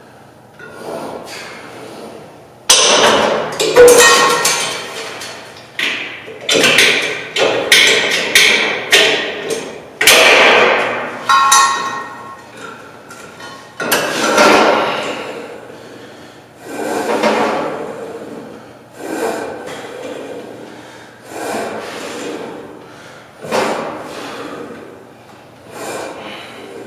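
Cable machine weight stack clanking with each rep: a sharp metallic clank every one to three seconds, each ringing briefly. The clanks are loudest and come fastest in the first half.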